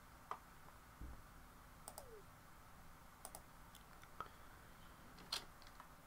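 Near silence broken by about half a dozen faint, scattered computer mouse clicks.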